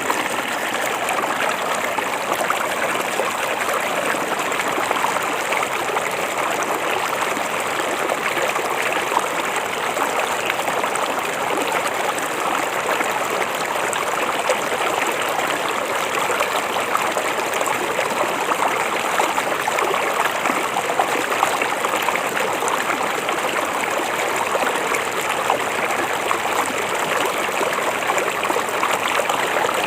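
Shallow river or stream flowing over rocks: a steady, dense rush of running water.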